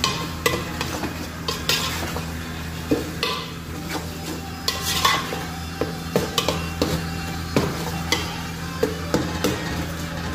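Steel ladle stirring thick tomato masala in a metal pot, scraping and clinking against the pot at irregular intervals while the mixture sizzles as it cooks down. A steady low hum runs underneath.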